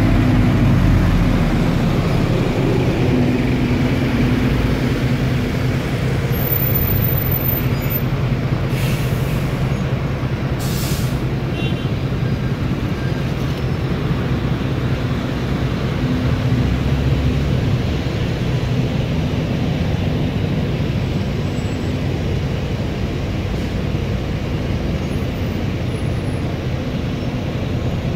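Double-decker bus engines running as buses turn and pull away, over a steady hiss of heavy rain and tyres on wet tarmac. Two short air-brake hisses come about a third of the way in.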